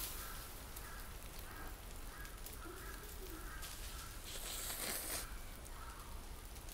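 A crow cawing over and over, a short call about every half second. Near the middle there is a brief hissing slurp as noodles are sucked in from the pot.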